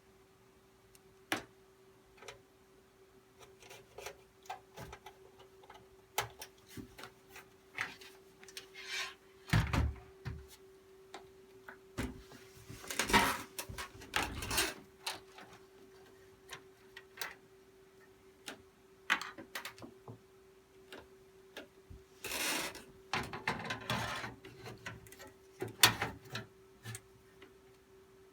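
Scattered clicks, taps and scraping from computer parts being handled during a PC build, over a faint steady hum.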